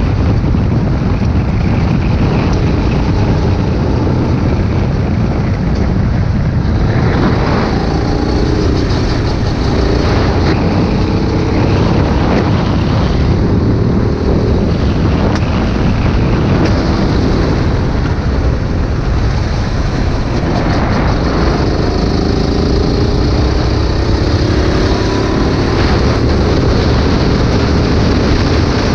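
Go-kart engine heard from the driver's seat at racing speed, over heavy wind buffeting on the microphone. The engine note drops into corners and climbs again on the straights, rising steadily near the end.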